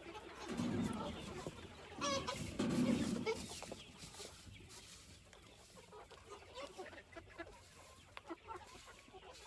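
Chickens clucking, loudest in the first three or four seconds, then quieter with scattered short taps.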